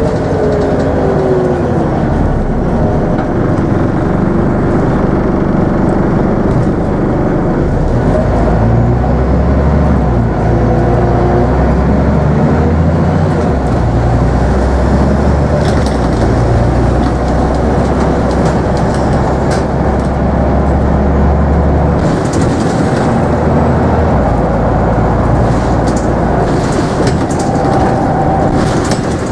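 Inside a Scania N94UB double-decker bus on the move: its 9-litre five-cylinder diesel and driveline run steadily, with a whine falling in pitch over the first couple of seconds, then a steady low engine note that shifts now and then. Scattered interior rattles and clicks come through in the second half.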